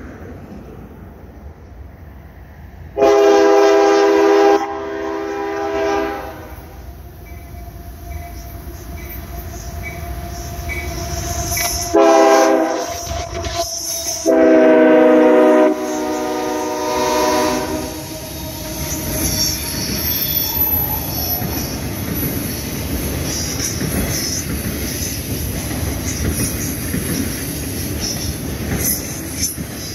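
Canadian Pacific freight locomotive's air horn blowing a chord in several blasts as the train approaches, the last one long. The steady noise of the freight cars rolling past follows.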